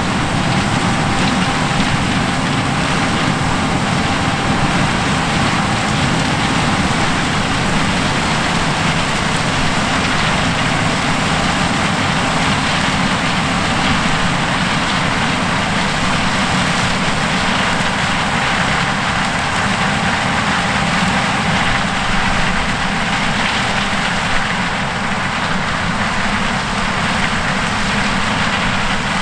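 John Deere S780 combine harvesting corn: a steady, even rush of engine and machinery noise with a faint steady whine above it.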